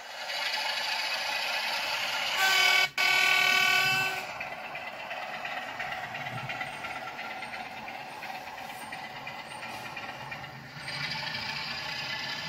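Model Class 47 diesel locomotive sounding its horn about two seconds in, a blast of under two seconds with a brief break in it. Under it runs the steady sound of the model train of vans rolling past on the track.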